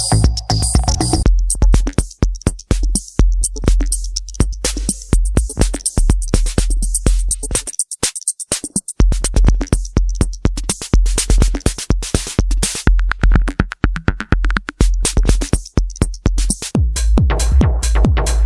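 Roland TR-8S drum machine playing a factory preset beat: a steady kick drum under fast hi-hat clicks. The beat drops out for about a second around the middle, and a different pattern takes over near the end.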